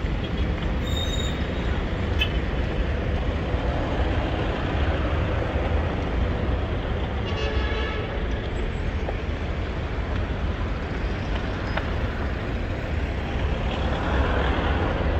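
City street traffic noise: a steady wash of passing vehicles with a deep low rumble. About halfway through comes one short vehicle horn toot.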